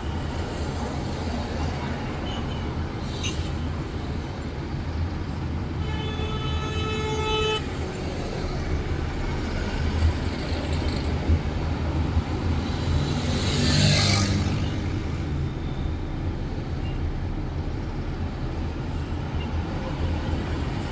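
Street traffic: a steady rumble of engines and road noise. A vehicle horn sounds once, lasting about a second and a half, about six seconds in. A vehicle swells past about thirteen to fourteen seconds in.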